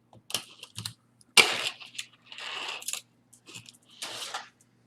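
Handling noise from jewelry and its packaging being picked up and moved: a sharp click about a second and a half in, among several short stretches of rustling and small clicks.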